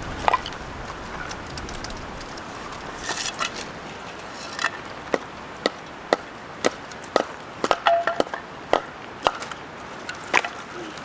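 A blade chopping on wood with a run of sharp, even strikes about two a second, starting about halfway through after a few scattered knocks.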